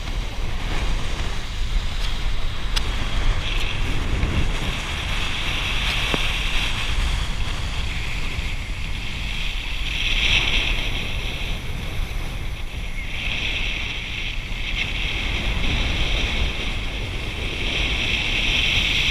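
Speedboat running at speed: a steady engine rumble with water rushing past the hull, and wind buffeting the microphone in a hiss that swells and fades several times.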